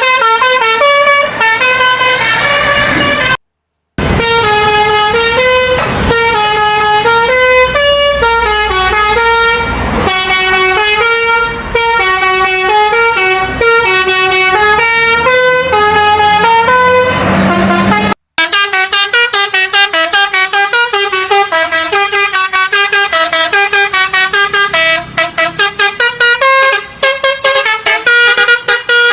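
Budiman bus 'telolet basuri' musical horn playing quick melodic runs, one note stepping to the next without pause. It breaks off for about half a second a few seconds in. From about 18 s in, the notes come shorter and more clipped.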